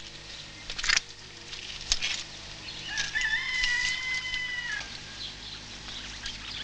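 A rooster crowing once: one long call lasting nearly two seconds, rising at the start and then held. It comes after two sharp knocks about a second apart in the first two seconds.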